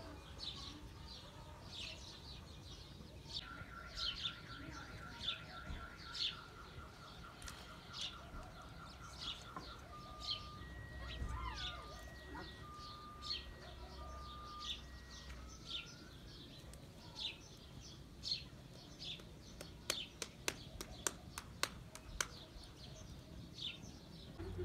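Small birds chirping: short high chirps repeat about once a second. Alongside them a steady high note holds for several seconds, then alternating two-pitch beeps follow, and a quick run of sharp clicks comes near the end.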